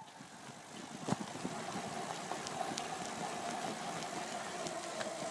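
Faint steady engine-like hum, with a sharp click about a second in and a few faint ticks.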